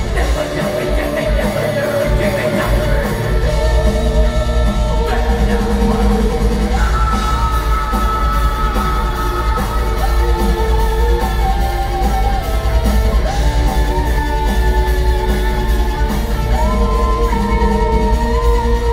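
Extreme metal band playing live in a large hall, with distorted guitars, drums, keyboards and vocals, heard from within the crowd.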